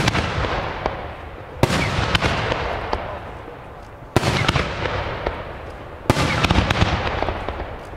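Aerial display firework shells bursting one after another, sharp bangs about two seconds apart. Each bang is followed by a long echo that fades away.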